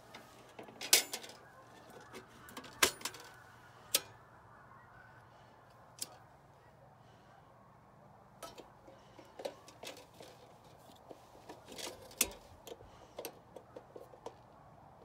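Metal clinks and clanks of a tin hurricane oil lantern being handled and lit, with three loud clanks in the first four seconds and many lighter clicks from about halfway on.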